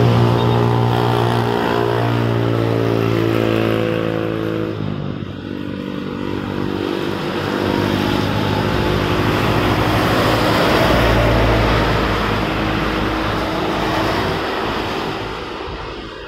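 Traffic on a wet road: a steady engine note for the first few seconds, then the tyre hiss and low engine rumble of a truck passing, swelling in the middle and fading near the end.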